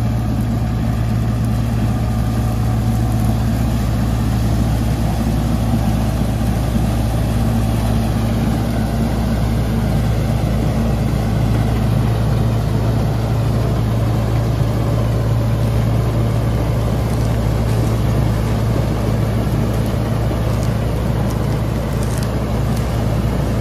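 KSA straw reaper running behind a John Deere 5210 tractor, cutting wheat stubble and blowing chopped straw into a trolley: a steady, unbroken mechanical drone. The tractor's own engine is hardly heard under the reaper.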